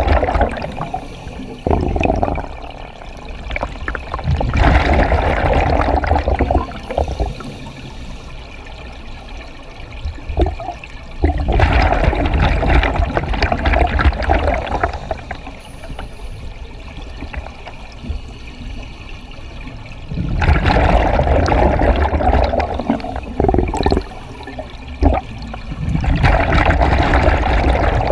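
Scuba diver's regulator breathing underwater: bursts of exhaled bubbles every several seconds, each lasting two or three seconds, with quieter hiss and small clicks between breaths.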